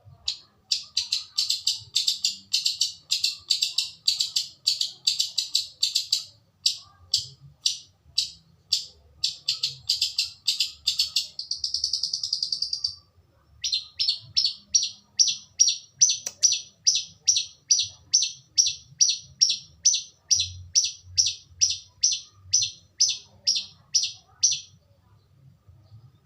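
Long-tailed shrike (cendet) calling vigorously: a run of harsh repeated notes at about two a second, a short buzzy trill about halfway through, then a regular series of short rising notes that stops shortly before the end.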